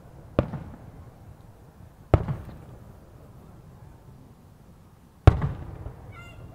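Aerial firework shells bursting overhead: three sharp booms, about half a second, two seconds and five seconds in, each trailing off in a rumbling echo.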